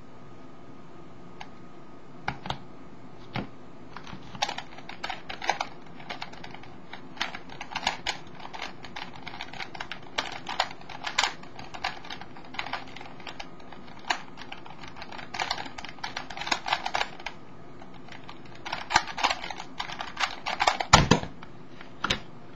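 Skewb puzzle being turned fast by hand in bursts of plastic clicking during a speedsolve. Near the end comes a heavier thump as the puzzle is set down and the hands hit the Stackmat timer pads.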